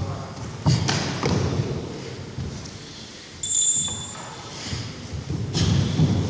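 Dull thuds of a full-contact kempo sparring bout, with blows landing and bare feet striking a wooden gym floor, echoing in a large hall. There is a cluster of knocks about a second in and another near the end, and a brief high squeak about halfway.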